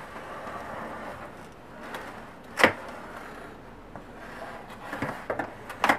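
A sword blade cutting through the top of a cardboard box: a steady scraping of blade on cardboard and tape, with one sharp knock about two and a half seconds in and a few small clicks near the end.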